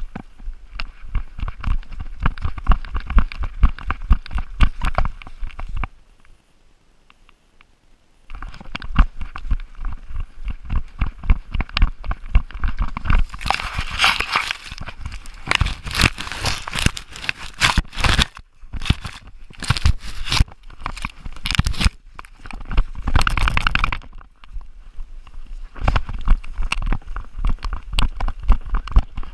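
A GoPro strapped to a running chocolate Labrador jolts and knocks in quick rhythm with the dog's stride. From about 13 to 24 seconds, leaves and undergrowth crackle and scrape against the camera housing. It goes quiet for a couple of seconds about six seconds in.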